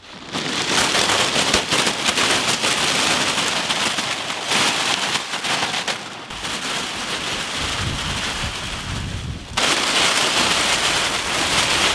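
Many sealed plastic chip packets pouring out of cardboard boxes onto a heap, a dense crinkling and rustling that comes in several loud surges.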